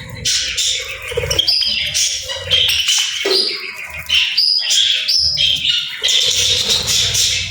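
Budgerigars chattering and chirping in a continuous, overlapping warble.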